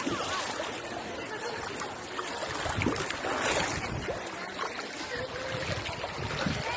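Shallow river running over a rocky bed, a steady rushing wash of water, with faint voices now and then in the distance.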